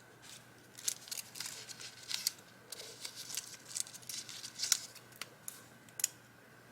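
Crisp paper rustling and crinkling as sheets of paper are handled, in irregular short bursts for about five seconds.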